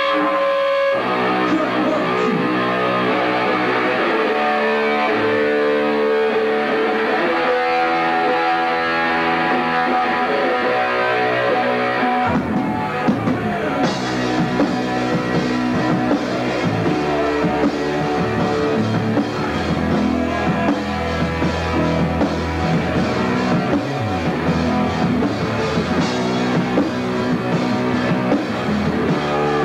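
Live punk rock band playing in a small rehearsal room. An electric guitar plays alone for about the first twelve seconds, then the drum kit and bass come in and the full band plays, with a singer on the microphone.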